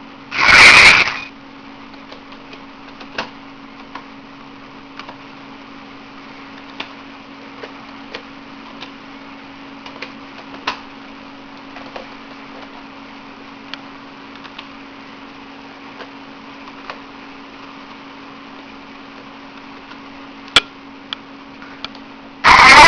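Steady low hum of an open phone line, with faint scattered clicks. A loud noisy burst comes about half a second in, and another starts near the end.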